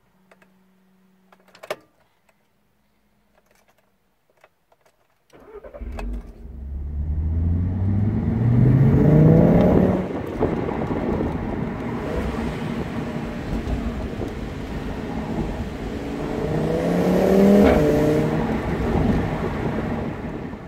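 Nearly quiet for the first five seconds apart from a few faint clicks, then the Audi TT RS Plus's turbocharged five-cylinder engine pulls hard under acceleration. Its note rises and drops back at an upshift about ten seconds in, then rises again to a second upshift near eighteen seconds.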